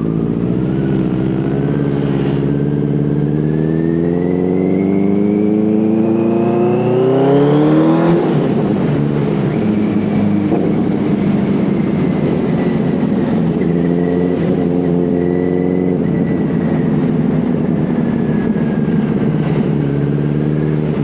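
Benelli TNT 600 inline-four engine on its loud dual exhaust accelerating hard from a standstill: the revs climb steadily for about seven seconds, drop sharply at a gear change, then hold a steadier pitch that eases slightly toward the end.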